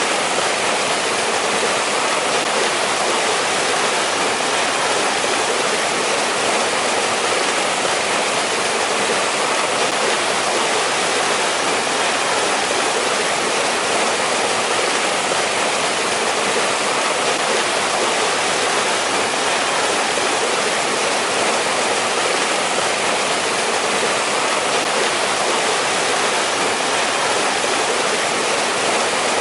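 Mountain stream rushing steadily over rocks, an unbroken hiss of running water.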